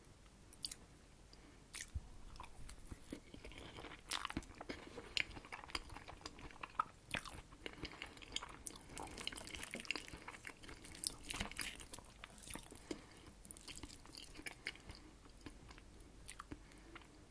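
Close-miked chewing of herring under a fur coat salad (pickled herring layered with boiled beetroot, potato, carrot and mayonnaise), with many irregular sharp mouth clicks and smacks.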